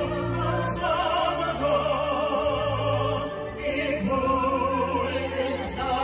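A small group of singers singing a slow song together into microphones, their voices wavering with vibrato, over an accompaniment of long held low notes that change every second or so.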